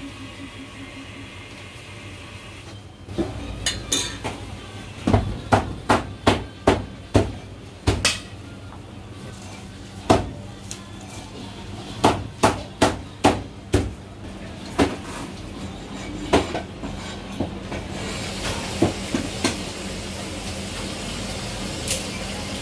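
Meat cleaver chopping on a plastic cutting board: a series of sharp knocks, several a second in quick runs with short pauses between, over a steady low hum.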